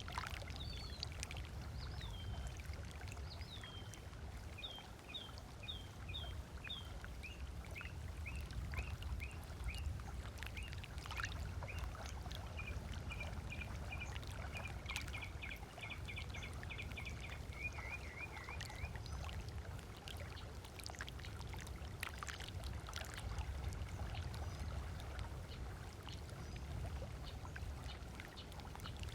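Small waves lapping on a sandy lakeshore, a steady low wash with small splashes. Over it a bird sings a series of repeated chirps that quicken into a fast trill, stopping about two-thirds of the way through.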